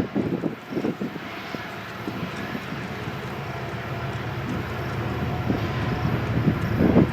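A distant low engine rumble growing slowly louder, with wind buffeting the microphone near the start and again near the end.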